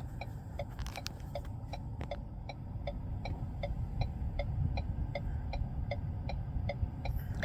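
Rapid, even ticking, about four ticks a second, over a low steady rumble.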